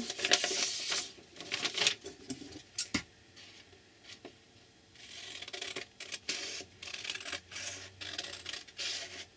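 Sheet of copy paper rustling as it is handled, then scissors snipping through the folded paper from about halfway, in a run of short crisp cuts.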